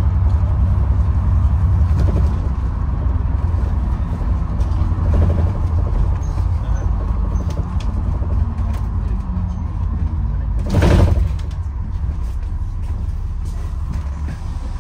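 Steady low rumble of a bus running, heard from inside the passenger cabin. About eleven seconds in, a brief loud rush of noise lasting under a second.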